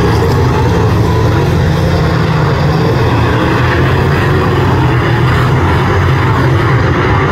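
Several speedway saloon cars' engines running hard as the pack races round the track, a loud, steady drone.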